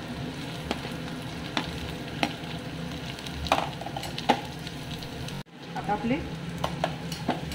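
Chopped vegetables and soya chunks sizzling in hot oil in a pressure cooker while a spatula stirs them, with scattered sharp knocks of the spatula against the pot. The sound cuts out briefly about five and a half seconds in.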